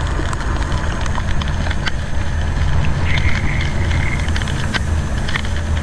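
Semi-truck's diesel engine running with a steady low rumble, heard from inside the cab, with scattered irregular ticks and clicks over it.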